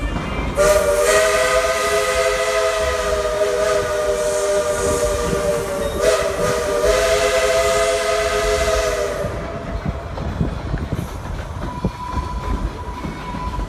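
A train's chime whistle sounding several notes at once in a long blast, with a brief break about six seconds in before a second blast that stops about nine seconds in. Under it, the rumble of the passenger coach rolling along the track.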